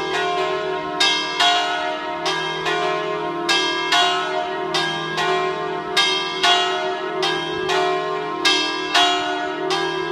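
The three largest bells of a five-bell church peal in E-flat, cast in 1953, swinging and ringing together. They are electrically rung, with clappers that fall onto the bell. The strokes of different pitches overlap unevenly, about two a second, over a lasting hum.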